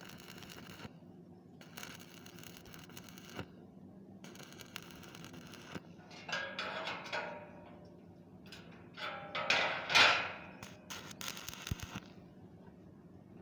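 Electric arc welding crackling in short runs of a second or two with brief gaps between, and louder, uneven sounds about six and ten seconds in.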